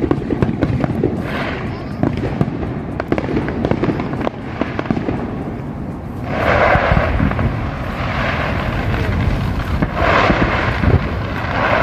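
Fireworks display going off: a steady run of pops and low booms, with two louder bursts of crackling noise, about six seconds in and again near the end.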